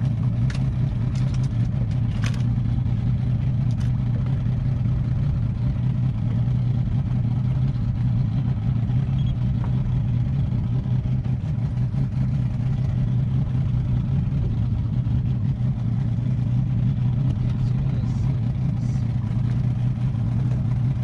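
Boat engine running steadily with a constant low hum, under a haze of wind and water noise. A few light clicks sound in the first few seconds.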